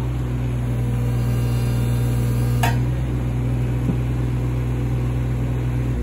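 Takeuchi TB216 mini excavator's diesel engine running steadily, with one sharp click about two and a half seconds in.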